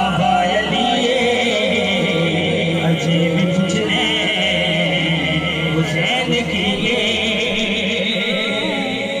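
A man singing a naat, a devotional Islamic hymn in Punjabi/Urdu, through a microphone and PA, drawing out long, wavering melodic lines without words breaking in. A steady low hum sits underneath the voice.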